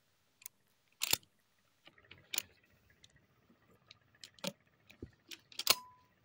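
Irregular sharp clicks and knocks of a 12-gauge shotgun being handled, metal parts clacking, with the loudest click near the end followed by a short ring.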